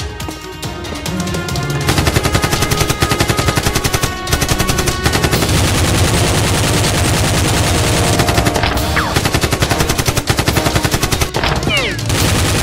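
Rapid automatic machine-gun fire in long bursts, starting about two seconds in, over action music.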